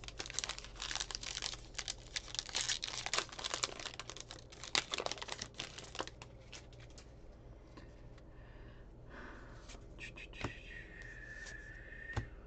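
Trading-card pack wrapper being torn open and crinkled, a dense crackling for the first six seconds, followed by quieter handling of the card stack. A thin, steady high tone sounds for about two seconds near the end.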